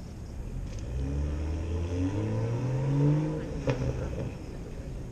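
A motor vehicle's engine accelerating nearby, its pitch rising steadily for about two seconds and then fading away. A short sharp click comes near the end.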